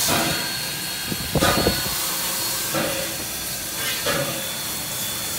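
Steam locomotive standing with steam hissing steadily, with a short clatter of knocks about a second and a half in.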